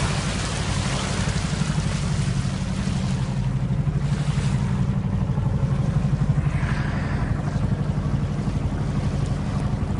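A motorboat's engine running steadily with a low, fast-pulsing hum, under the continuous rush and splash of the bow wave along the hull.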